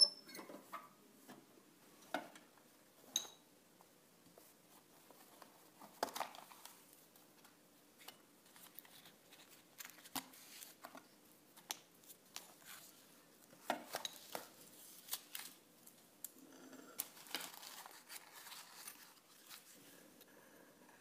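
Quiet handling sounds of small objects on a wooden table, as an antique straight razor is taken from a paper-lined box and laid down: scattered clicks and light knocks, a bright clink at the start and another about three seconds in, and a stretch of rustling near the end.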